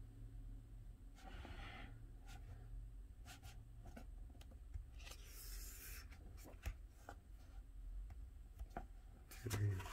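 Faint rubbing and rustling of hands on the paper pages of a large hardcover book as it is held open, two brief rubs and a few small clicks over a low steady hum.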